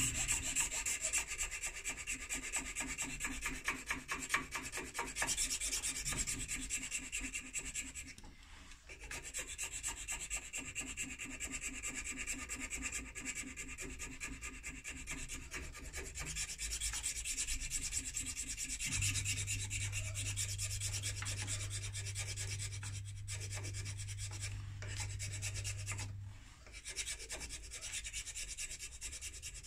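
Hand file rasping against a vulcanite pipe stem held in a lathe chuck, in quick continuous strokes with a couple of brief pauses, taking the stem down toward its final size. A steady low hum joins in for several seconds in the latter part.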